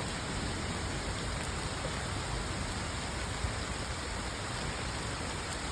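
Steady storm noise of heavy rain and strong wind, an even roar like a distant jet plane, which the listener fears is high-wind or tornadic wind.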